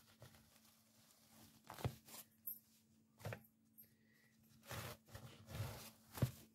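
Thin spring roll pastry sheets being peeled apart from a stack: a series of faint, short papery peeling and rustling sounds.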